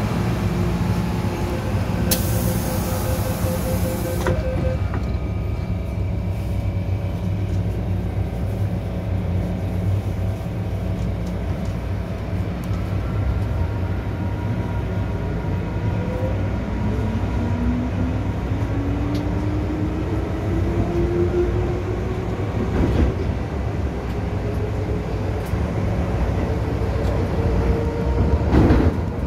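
MTR M-Train metro car: rapid door-closing beeps over a hiss, ending in a sharp knock as the doors shut. After a steady hum, the traction motors' whine rises steadily in pitch as the train pulls away, with two knocks near the end.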